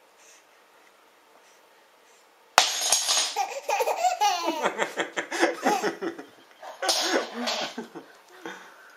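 A sudden clatter, then a baby boy laughing hard in a long fit, and again in a shorter burst a second later. The laughter is set off by a spoon being dropped.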